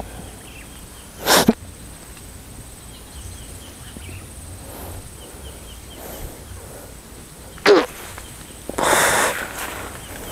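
A man makes two short, sharp vocal outbursts with a falling pitch, about six seconds apart, then a forceful, breathy blast of air near the end.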